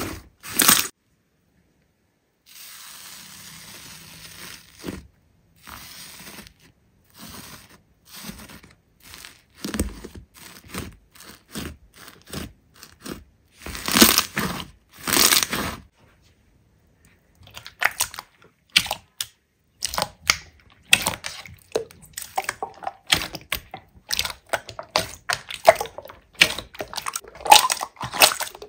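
Slime being squeezed, poked and pulled by hand close to the microphone: an irregular run of short crackles, pops and squishes, with two brief silences and denser crackling near the end.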